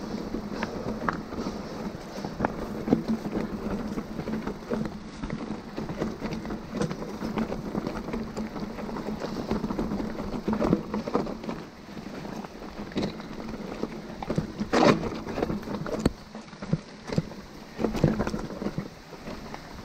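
Mountain bike rolling over a rough trail: a steady tyre and drivetrain hum, broken by frequent irregular knocks and rattles as the bike hits bumps. The hum drops away about three-quarters of the way through while the knocks go on.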